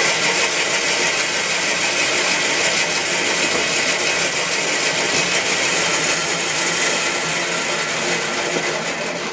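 Bandsaw running and ripping a wooden board lengthways, a loud, steady sawing noise throughout.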